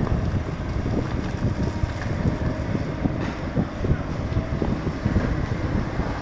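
Kobelco 220 hydraulic excavator's diesel engine running under work, with wind buffeting the microphone and scattered knocks throughout.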